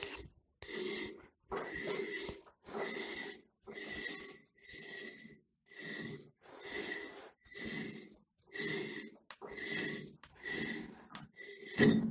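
A homemade thread-cutting die in its holder, turned by hand in short strokes on a freshly cut thread on a steel pipe. It gives a rasping, squeaky scrape about one and a half times a second, and a louder knock near the end as the die comes free.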